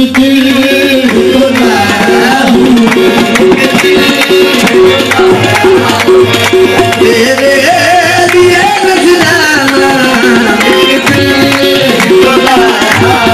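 Qawwali music: tabla keeping a steady, quick beat under a winding melodic line.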